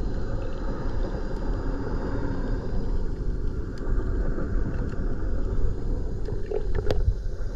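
Steady low underwater rumble, with a few faint clicks near the end.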